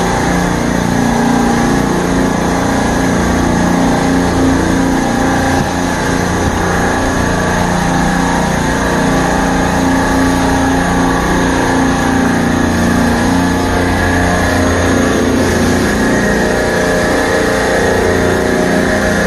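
Steady mechanical drone of a supermarket refrigeration rack's compressors running, with an even hum that does not change.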